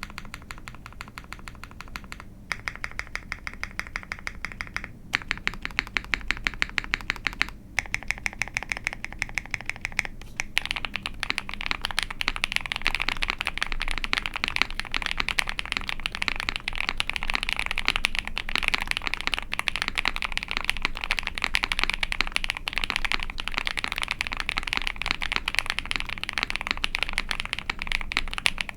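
Mechanical keyboard with lubed and filmed Zaku linear long-pole switches in a POM plate (Ai03 Vega, GMK keycaps) being typed on. For about the first ten seconds keys are tapped in quick, even runs with brief pauses between them; then it goes over to steady, fast typing.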